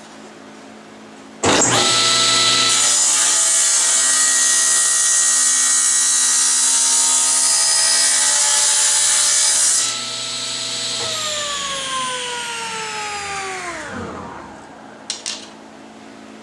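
A General 350 cabinet table saw is switched on about a second and a half in and runs at a steady pitch. From about three seconds a hissing saw-blade whine rides on top as the blade cuts into the end of a clamped hardwood cylinder. At about ten seconds the motor is switched off and the blade coasts down, its pitch falling steadily over about four seconds.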